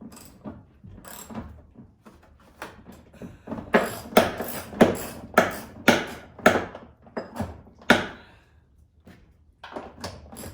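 A hand ratchet being worked back and forth on a mirror-mount fastener: a run of about eight sharp ratcheting strokes, roughly two a second, starting a few seconds in, with lighter clicks of handling before and after.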